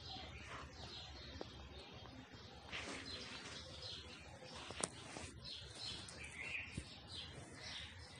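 Birds chirping in the background over a quiet outdoor hum, with one sharp click a little under five seconds in.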